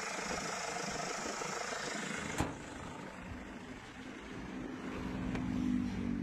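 Hyundai Grand Starex D4CB four-cylinder common-rail diesel running as the van is road-tested for a low-power fault. There is one sharp click about two and a half seconds in, and the engine grows louder near the end.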